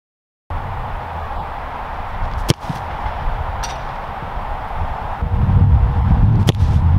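Soccer ball kicked with a Nike Mercurial Vapor 15 Elite boot: two sharp strikes about four seconds apart, the first the loudest, each followed by a fainter knock a second or so later, over a steady low rumble.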